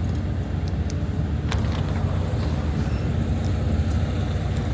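A diesel truck engine idling: a steady low rumble. A single sharp click comes about a second and a half in.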